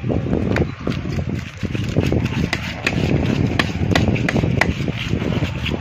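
A knife chopping through big fish on a cutting block: irregular sharp strikes, about one or two a second, over low voices and background chatter.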